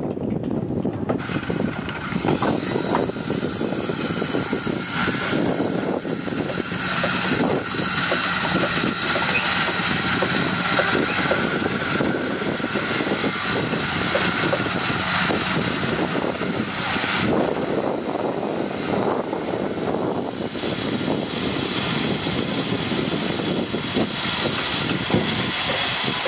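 Construction-site noise of power tools and machinery running steadily, with scattered knocks and clatter and a high motor whine that stops about two-thirds of the way through.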